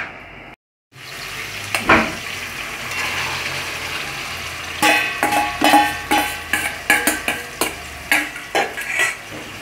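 Ackee tipped into a pot of hot oil with sautéing onion, tomato and pepper, sizzling steadily, with a knock as it goes in. It is then stirred: a spoon scrapes and clinks against the metal pot about twice a second over the sizzle.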